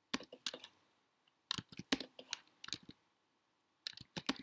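Computer keyboard keys and mouse buttons clicking in three short quick clusters, with pauses between.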